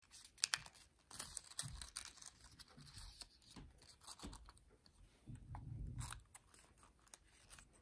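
Origami paper crinkling and crackling in the hands as a folded paper star chomper is pressed and worked, a string of sharp papery clicks with a few soft low handling bumps.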